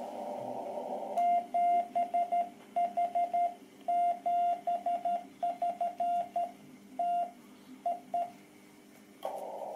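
Morse code sent on a hand-operated straight key, heard as the transceiver's CW sidetone: a single steady mid-pitched tone keyed in dots and dashes. The receiver's band hiss drops out while the key is worked and comes back near the end, as the set returns to receive.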